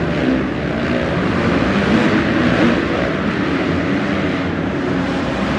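Several dirt bike engines revving hard together as a pack races around the track, their pitches rising and falling and overlapping.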